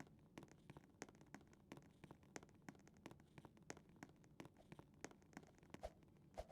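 Faint, irregular small clicks and taps, several a second, over quiet room tone.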